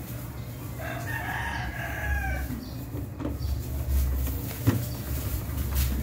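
A rooster crowing once, one crow of about two seconds starting about a second in, over a steady low hum. Two sharp clicks come later, near the end.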